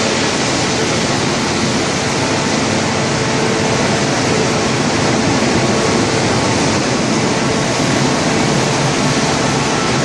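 Industrial wood chipper line running: a loud, steady machine noise with a faint even hum, not changing throughout.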